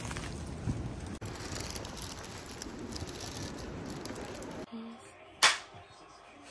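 A plastic takeout bag rustling as it is carried, over street noise. About five seconds in, one loud, sharp click.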